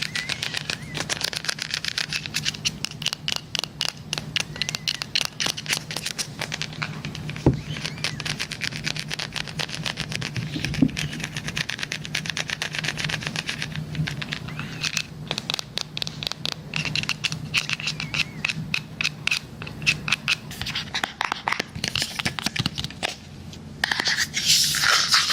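Rapid fingertip and nail tapping and scratching on a hard device held close to the microphone, a dense run of small clicks over a faint steady hum. A louder scraping starts near the end.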